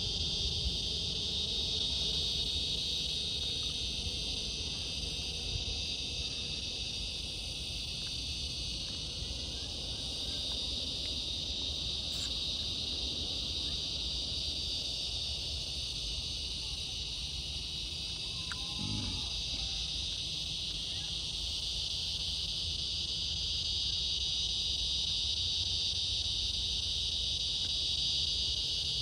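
Steady evening chorus of insects, an unbroken high-pitched shrill that holds level throughout, over a low rumble.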